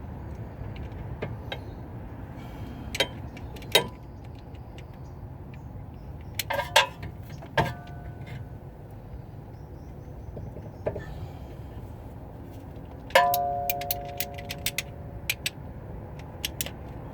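Metal hand tools clicking and knocking against a rear brake caliper while the caliper piston is turned and pushed back with a wind-back tool and Allen wrench. A few scattered knocks, then one loud metallic clang that rings on for a moment, followed by a run of quick light clicks, over a steady low background rumble.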